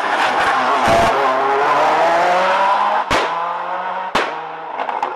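Ford Escort RS Cosworth rally car's turbocharged four-cylinder engine accelerating hard out of a hairpin, its pitch rising. There are sharp bangs about one, three and four seconds in, and the sound fades as the car pulls away.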